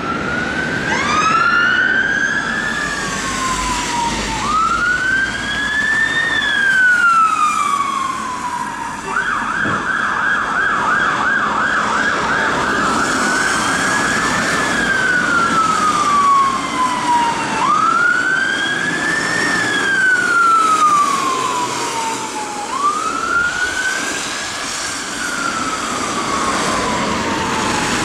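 Fire engine electronic sirens on a wail, the pitch rising and falling slowly every four to five seconds. Two sirens overlap about a second in, and one switches to a fast yelp for a few seconds near the middle before going back to the wail. Engine and road noise run underneath.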